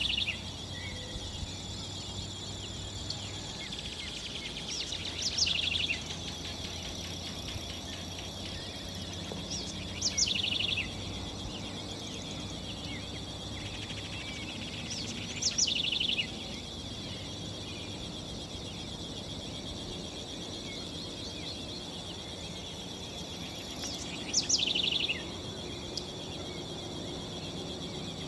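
Snail kite calling: a short call of rapid pulses, given four times a few seconds apart. Under it runs a steady high insect buzz.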